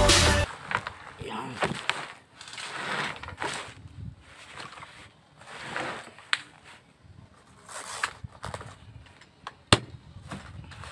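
Soft padded gun bag being unzipped and handled on a table: several zipper runs and fabric rustling, with a sharp click near the end.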